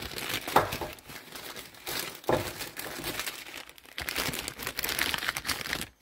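Plastic crinkling and rustling as a bag is handled, in irregular bursts, cutting off abruptly just before the end.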